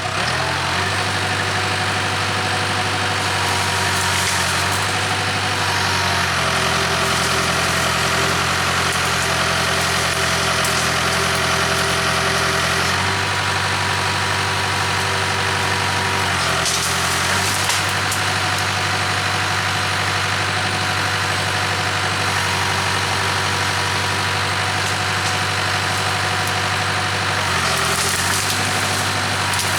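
Diesel engine of a Case 580K backhoe running steadily, its note shifting slightly a few times.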